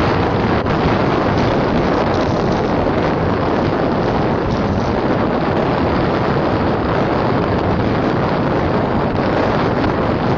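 Loud, steady wind rush on the microphone from moving along a road at speed.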